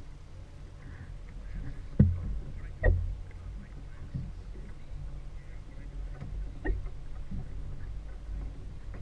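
Small fishing boat at sea: a steady low rumble with three sharp knocks, about two, three and nearly seven seconds in.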